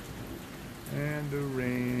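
Steady rain falling in a thunderstorm. About a second in, a low voice hums or murmurs without clear words over the rain and is louder than it.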